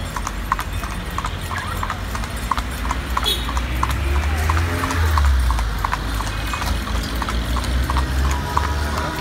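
Carriage horse's hooves clip-clopping on a paved street in a steady, even rhythm, with a low rumble underneath that is strongest about halfway through.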